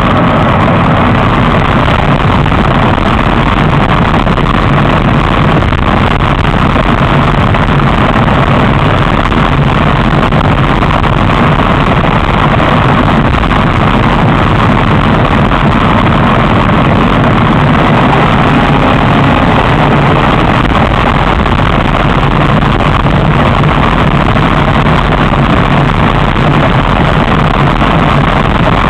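Loud, steady wind and running noise from a moving electric bike whose motor is a car alternator, with no letup and no single event standing out.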